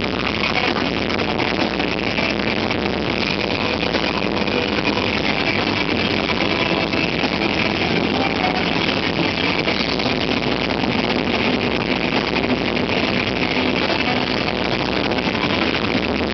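Extreme metal band playing live, with heavily distorted electric guitar over a drum kit. It is a steady, dense, loud wall of sound with no vocals at this point.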